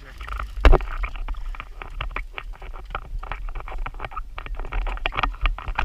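Rapid, irregular clicks and knocks of fishing tackle and boat handling as a conventional reel is cranked, with one loud knock under a second in, over a low rumble of wind on the microphone.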